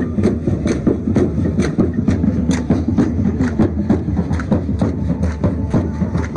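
Several large double-headed drums carried by marching drummers of a matachines dance group, beaten together in a steady, fast rhythm of about four beats a second with a deep, continuous boom underneath.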